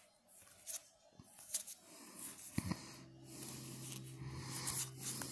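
Trading cards rustling and clicking as a stack of glossy cardboard cards is handled and fanned through in the hand. A steady low hum comes in about halfway through and stops near the end.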